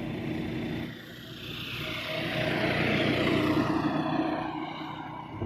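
A bus or coach going past: its engine and rushing road noise build to a peak about three seconds in, then fade away.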